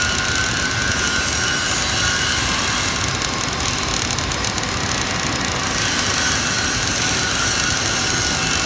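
GMAW (MIG) welding arc crackling and hissing steadily through a vertical-position (3G) weld, with no break in the arc.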